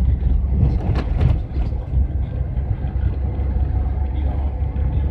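Inside a moving vehicle's cabin: steady low engine and road rumble while driving, with a brief knock about a second in.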